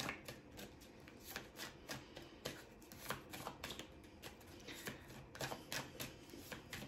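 A deck of oracle cards being shuffled by hand, overhand style: faint, quick card slaps and rustles, several a second.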